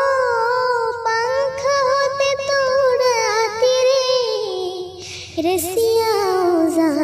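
A young girl singing solo, holding long notes that waver and glide up and down.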